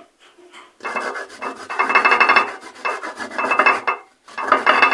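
Bitter kola nuts being grated by hand on a metal grater: quick back-and-forth rasping strokes, continuous for about three seconds, a brief break, then more grating near the end.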